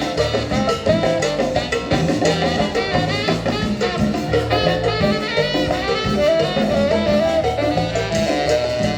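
Chiapas marimba band playing a lively Latin dance tune: marimba runs over a steady bass and drum beat, with horns joining in.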